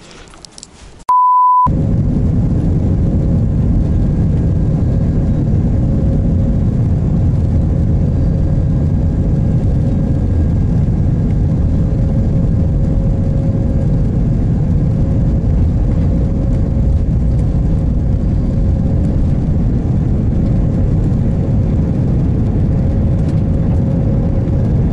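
A short single-pitched beep, then the steady, loud rumble of an airliner cabin: jet engine and airflow noise, with a faint steady hum over it.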